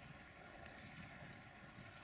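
Near silence: faint wind on the microphone over a low, steady background hum.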